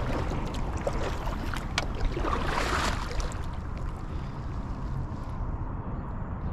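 Kayak paddle strokes: the blade dipping into calm water with drips and small splashes, a louder splash between two and three seconds in. Low wind rumble on the microphone underneath.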